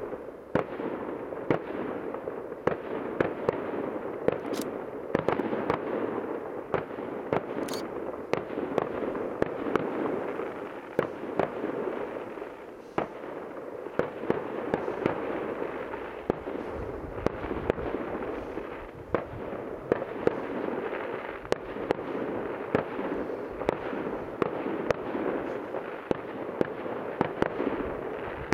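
Aerial fireworks bursting in the sky: a continuous irregular stream of sharp bangs and crackles, often several a second, over a steady background hiss.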